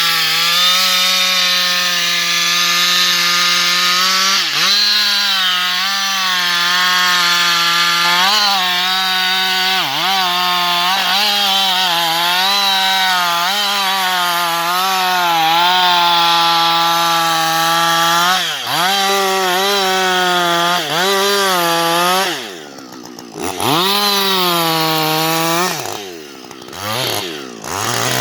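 Husqvarna 560XP two-stroke chainsaw running at high revs while cutting wood, its pitch dipping briefly now and then under load. About three quarters of the way through, and again near the end, the throttle is let off and the engine falls quickly toward idle before revving back up.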